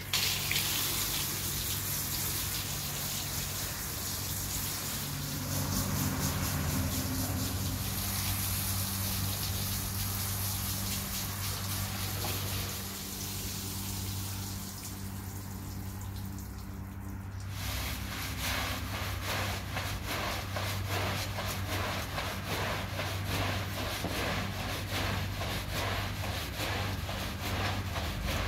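Water spraying from a hose nozzle onto a wet, soapy rug in a steady hiss, with a steady low hum underneath. About two-thirds of the way through it gives way to the rhythmic back-and-forth strokes of a stiff brush scrubbing the soaked rug.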